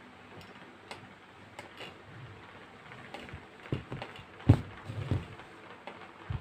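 Scattered light clicks and taps from hands working yarn strands on a canvas stretched over paper. A louder knock comes about four and a half seconds in.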